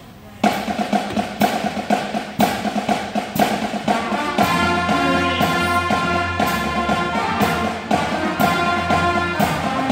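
School concert band starting a military medley about half a second in, with a steady drum beat about twice a second under sustained horn notes. The full band comes in with low brass about four and a half seconds in.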